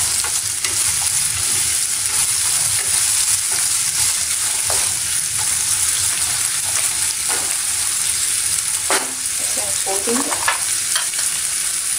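Chopped onions and green chillies sizzling steadily in hot oil in an iron kadhai, with occasional scrapes and knocks of a wooden spatula stirring them against the pan.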